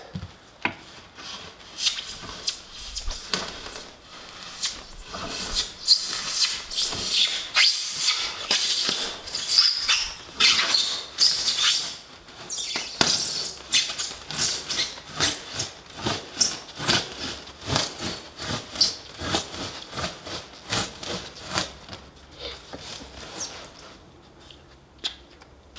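Serrated foam knife sawing back and forth through a foil-faced rigid foam insulation board, a rasping scrape at about two strokes a second that stops near the end.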